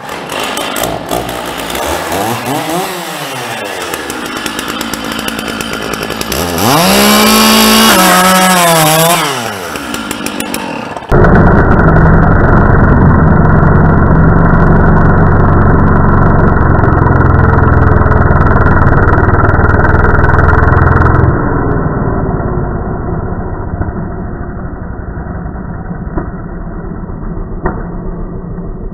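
Stihl MS 660 two-stroke chainsaw running and revved: a short rise and fall in pitch, then a louder full-throttle rev of about three seconds. About eleven seconds in the sound turns abruptly duller and steady at full loudness, then drops to a lower level for the rest.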